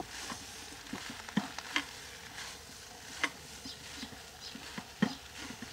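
Chicken, vegetables and noodles being stirred and tossed in a wok: irregular clicks and scrapes of the utensil against the wok over a faint sizzle.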